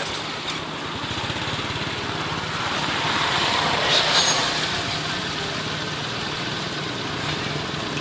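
Steady outdoor background noise with an engine-like hum, swelling briefly about four seconds in.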